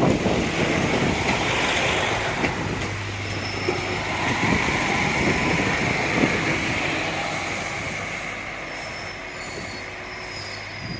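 A JR Kyushu train running past on the rails, with a few sharp knocks of wheels over rail joints in the first second and a loud rumble that fades steadily as it moves away. Thin high-pitched squeals come in near the end.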